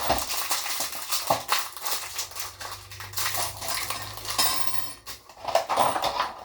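Small metal nuts, bolts and washers for a toilet tank clinking and rattling against each other as they are handled.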